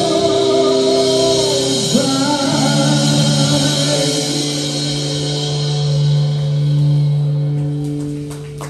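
Live rock band with a male singer, guitars and drums closing a song: the voice bends through a phrase, then the band holds a long chord that fades away near the end.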